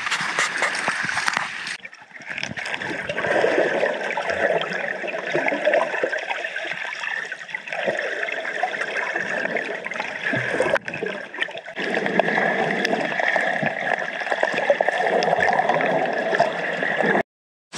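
Water gurgling and splashing around a camera held at and under the water surface while snorkelling. The sound changes abruptly a few times and drops out briefly near the end.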